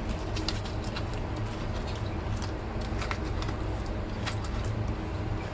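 A steady low hum, with a few light clicks of a spoon against a plate as the food is mixed.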